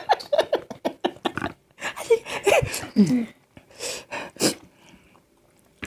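Mouth sounds of a person eating: a quick run of wet chewing and lip-smacking clicks, a couple of short hums, and two sharp noisy breaths in the middle.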